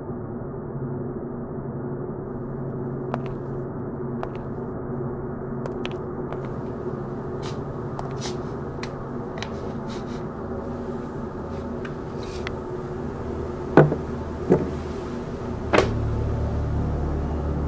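Dark, sustained drone of soundtrack music with faint scattered clicks, then three loud hits close together near the end, after which the drone turns deeper and louder.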